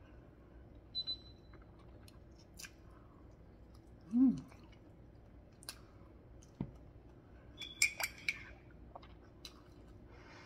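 Close-up eating sounds: soft chewing and small mouth clicks, with a brief hummed "mm" about four seconds in. Around eight seconds in, a few ringing clinks of a metal spoon against a ceramic mug.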